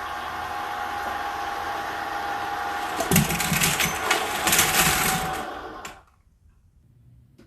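Small electric motor and gears of a remote-controlled construction model whining steadily, with a louder rough crunching noise joining about three seconds in. The motor stops about six seconds in, leaving only a few faint clicks.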